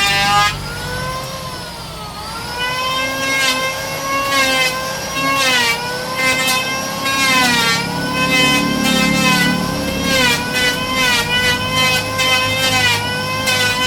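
High-speed electric woodworking power tool motor whining, its pitch sagging and recovering several times as it bogs under load while cutting wood.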